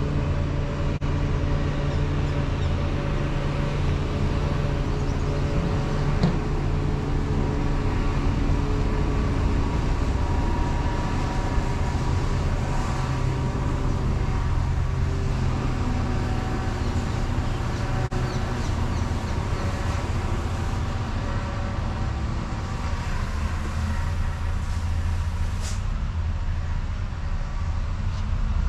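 Road traffic on a city road: buses and cars driving past, a steady engine drone that is strongest in the first half. A brief high squeak comes near the end.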